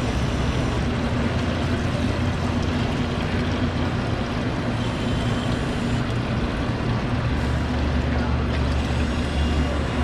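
Steady hum of a sprayer chemical-mixing system's water pump running while it fills and blends the mix, with liquid chemical being poured from a jug into its inductor hopper. The low drone gets heavier about seven seconds in.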